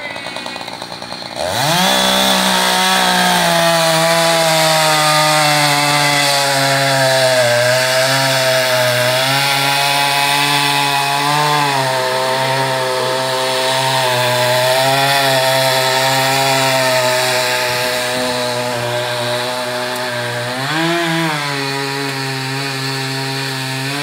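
Small petrol engine of a power tool revs up about a second and a half in, then runs loud and fast at high throttle, its pitch wavering and dropping slightly as if under load, with a brief rev near the end.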